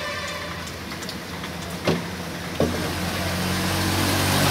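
A motor vehicle engine running with a steady hum that grows louder from a little past halfway, after two sharp clicks.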